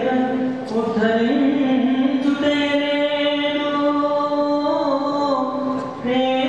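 A voice singing a slow devotional song in long held notes, moving to a new pitch every second or so, with a short break near the end before the next phrase.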